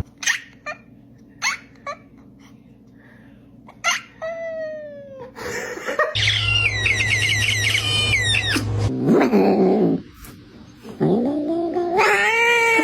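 Cats making odd, strained calls: a falling meow about four seconds in, a wavering warble from about six to nine seconds over a low hum, and a long call that rises and falls near the end. A few sharp clicks come in the first two seconds.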